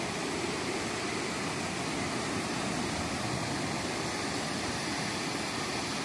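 Small waves washing in over the sand at the shoreline, a steady rush of surf.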